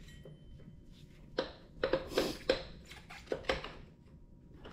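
Metal parts and tools clicking and clinking, a handful of sharp separate knocks over a couple of seconds, as a stuck wheel is worked on to get it off.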